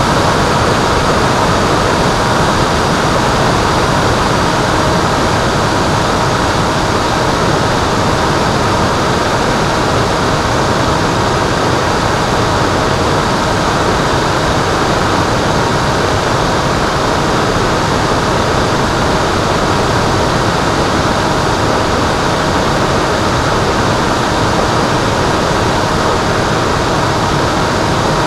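Onboard sound of an FPV Penguin RC plane in flight: a steady rush of wind over the airframe with the even hum of its electric motor and propeller, unchanging throughout.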